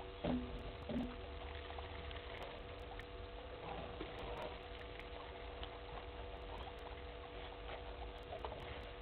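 African elephants drinking at a waterhole: faint patter and splashes of water from their trunks, with two louder short sounds in the first second, over a steady electrical hum.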